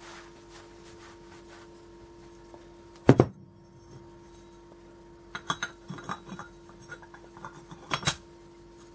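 Steel and friction plates of a motorcycle clutch being handled: a sharp metal knock about three seconds in, then a run of small clinks and taps, ending in another sharp knock near the end.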